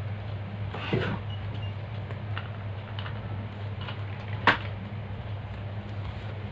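A room door being shut, with a soft knock about a second in and a sharp latch click about four and a half seconds in, over a steady low hum.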